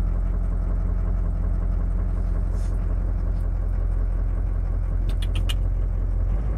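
Motor vehicle engine running with a steady low hum, and a few quick clicks about five seconds in.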